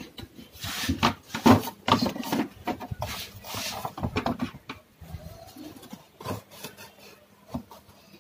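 Plastic control panel of a dishwasher door being handled and fitted into place: irregular rubbing, scraping and knocks of plastic parts, loudest in the first few seconds.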